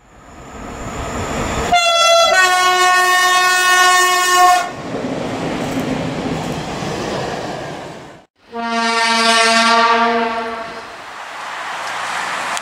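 Train horns sounded twice over the noise of trains running. The first blast starts about two seconds in, shifts to a lower, steadier tone and holds for about two and a half seconds. The second is a lower horn of about two seconds near nine seconds. Between them the sound drops out for a moment.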